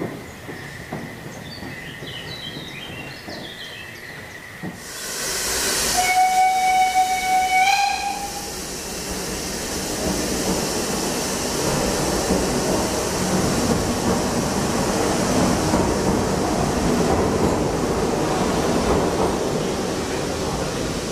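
Narrow-gauge steam locomotive 99 4511: a loud rush of steam hiss about five seconds in, then a steam whistle blast of about two seconds that rises slightly in pitch at its end, the loudest sound here. Then the train gets under way and keeps up a steady rolling noise as it passes.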